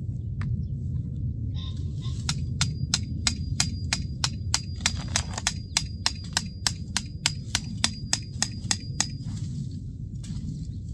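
Rapid, evenly spaced metallic tapping, about four strikes a second for some seven seconds, from a hand tool worked at the top of a fence post, with a thin high ringing tone along with the strikes. A steady low rumble lies beneath.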